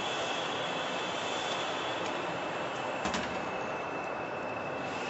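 Steady industrial machinery drone with a thin high whine over it, and a single sharp click about three seconds in.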